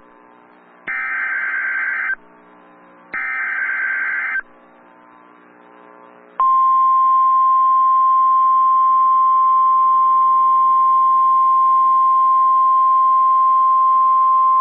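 NOAA Weather Radio emergency alert signal. Two bursts of SAME header data tones, each a harsh warble about a second long, then about six seconds in the steady single-pitch 1050 Hz warning alarm tone, which announces a new warning.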